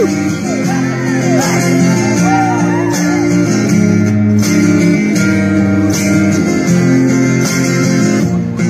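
Acoustic guitar strummed in steady chords in an instrumental passage between sung lines, with a strum about every second or so.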